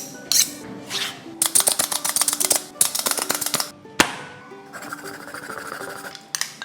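Light background music over kitchen preparation sounds: a quick run of crisp clicks, a single sharp knock about four seconds in, then a short hiss.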